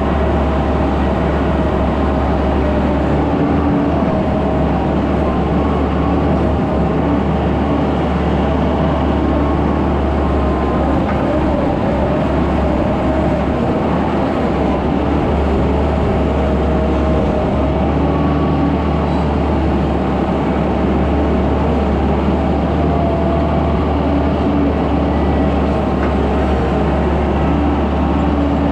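Skid steer engine running steadily under work, a continuous low drone with a faint tone that wavers up and down above it.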